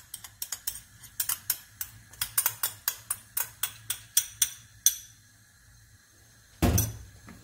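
A spoon clicking against a small glass bowl as béchamel is scraped out of it into a frying pan: quick sharp ticks, roughly four or five a second, for about five seconds. A single louder knock comes near the end.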